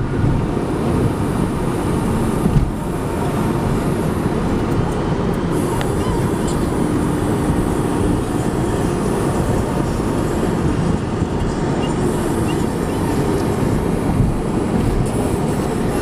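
Steady road noise heard from inside a car's cabin while driving at highway speed: tyre rumble and engine drone.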